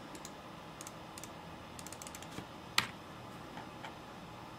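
Computer keyboard keys tapped sporadically as code is selected and copied, with one sharper click nearly three seconds in.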